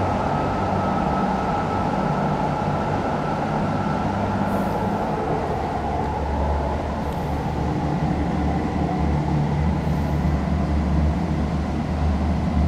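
ET122 diesel railcar pulling away down the tunnel, its engine a steady low drone carried along the tunnel, with a faint whine that fades out partway through; the low note shifts lower about halfway through.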